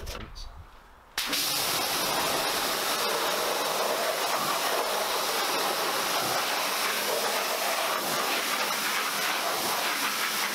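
Pressure-washer jet spraying and rinsing water against the underside of a car bonnet: a steady hiss that starts suddenly about a second in.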